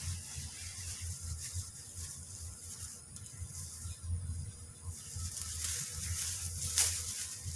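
Steady outdoor hiss with wind buffeting the microphone, and a few short rustles near the end as the angler handles things beside him.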